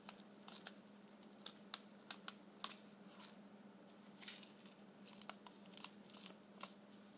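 Faint rustling and scattered light clicks and crinkles as a felt-and-paper craft wand on a paper straw is handled and turned over in the hands, over a faint steady hum.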